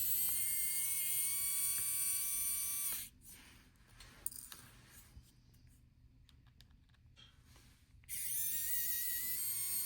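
A small electric motor whines steadily for about three seconds and stops. A few faint clicks follow, then the motor starts again about eight seconds in and runs on. The work is opening the watch's caseback.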